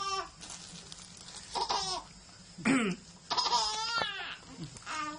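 A man coughing and a small child laughing in reply, in short separate spells, about five in all, with quiet gaps between them.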